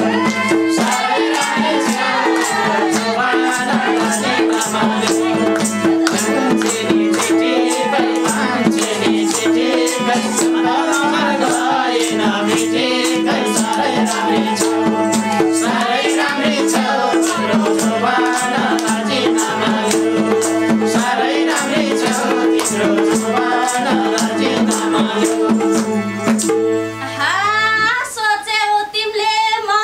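Live Nepali dohori folk music: madal hand drums play a fast, busy rhythm under held harmonium tones and a wavering melody. Near the end the drums and harmonium stop and a high voice begins singing.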